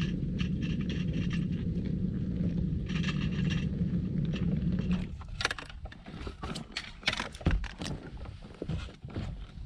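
Plastic kayak hull scraping along the bottom, a steady low grinding for about five seconds, then scattered knocks and rattles of gear in the boat.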